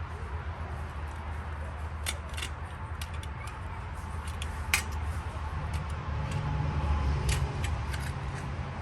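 Scattered sharp clicks and light metallic taps from hand tools and metal parts being handled during body work, over a steady low hum. The sharpest click comes a little under five seconds in.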